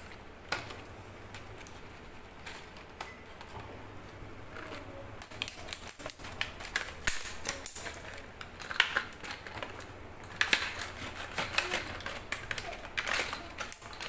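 Scissors cutting open a stiff clear plastic blister pack: a dense run of sharp crackling clicks and snips, starting about five seconds in after a few scattered clicks of the pack being handled.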